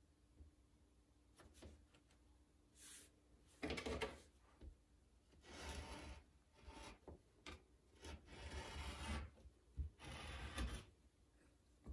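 Faint, irregular scraping and rubbing strokes from hand-building clay work, some brief and some lasting about a second, the loudest about four seconds in.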